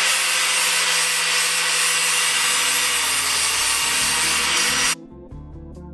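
Grinder grinding powder coat off a steel bar down to bare metal: a loud, steady grinding hiss with a steady whine. It cuts off suddenly about five seconds in, and guitar music follows.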